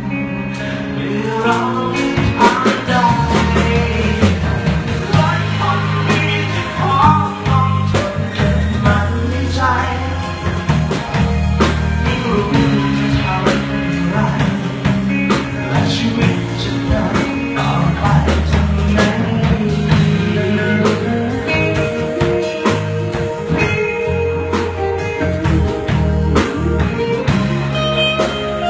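Live band playing a Thai song: a man sings over electric guitars and a steady bass line. About twenty seconds in the singing gives way to the instruments carrying on with long held notes.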